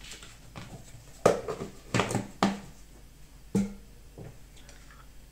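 Background music: a handful of plucked guitar notes, each struck sharply and ringing briefly, the loudest about a second in.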